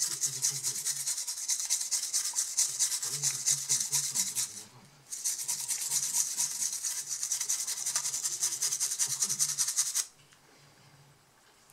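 Toothbrush bristles scrubbing the circuit board of a water-damaged laptop hard drive, rapid scratchy back-and-forth strokes brushing off the residue left by the liquid. There is a brief pause about five seconds in, and the scrubbing stops about ten seconds in.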